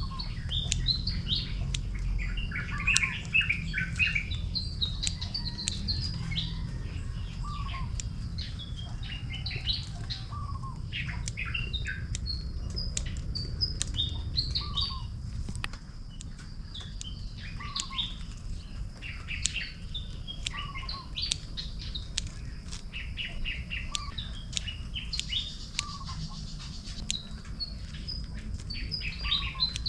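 Several birds chirping and calling in busy bursts, with one call, a short rising note, repeating about every two seconds. Scattered sharp clicks and a steady low rumble sit underneath.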